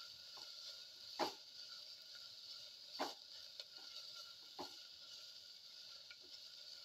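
Plastic spatula scraping and knocking against a stainless steel pan while stirring sliced shallots being sautéed, with three louder scrapes spread across a few seconds and a few lighter ticks, over a faint steady hiss.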